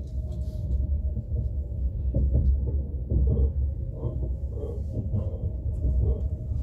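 Steady low rumble of an ES2G Lastochka electric multiple unit running along the track, heard inside the passenger car, with a faint steady hum above it.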